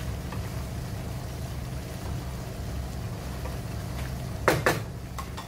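Chicken adobo simmering in a wok as its sauce reduces down, stirred with a wooden spatula, over a steady low rumble. Two sharp knocks come close together about four and a half seconds in.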